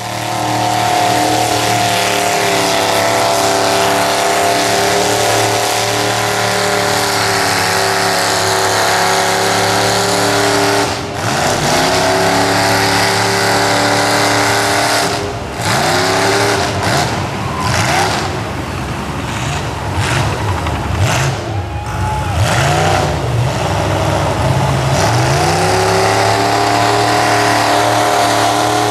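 Lifted Chevrolet Suburban mud truck's engine running hard at high revs as it churns through deep mud. Through the middle stretch the revs drop and climb again several times, then it is held high again near the end.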